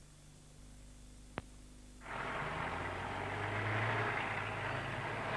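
Low mains-type hum in a near-silent gap between adverts, broken by a single sharp click about a second and a half in. About two seconds in, a steady hiss of background noise comes in and holds, with no voice or music.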